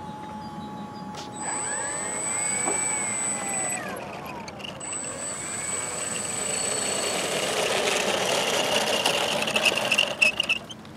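The propellers and motors of a radio-controlled Canadair CL-84 tilt-wing model running, with a high steady whine and short rising and falling pitch glides as they spin up. The propeller noise grows louder, then a few sharp clicks come near the end before it cuts off.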